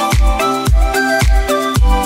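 Background dance music with a steady kick drum, about two beats a second, under a melody of short held notes.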